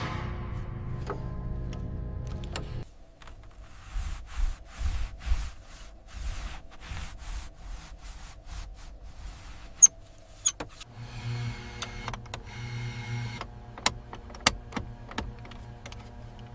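A small electric motor whirs steadily for about three seconds, then gives way to a run of irregular clicks and scraping. It whirs again briefly later on, with a few sharp clicks along the way.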